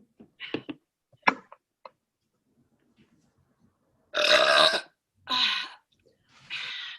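A woman's loud, deliberate beer burp about four seconds in, lasting under a second, followed by two shorter burps.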